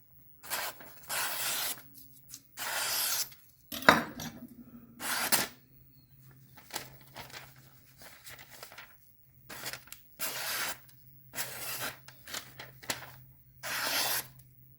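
A freshly sharpened Shun Damascus chef's knife slicing through paper in a run of short rasping strokes, testing the edge, with one sharp knock about four seconds in.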